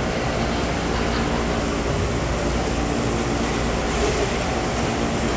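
Steady hum and rush of the big indoor rink's ventilation fans, an even background din with no sudden sounds.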